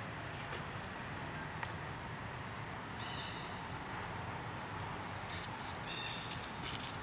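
Steady outdoor background hiss with two brief high-pitched chirps, about three and six seconds in, and a few short crackles of dry leaves just before the second chirp.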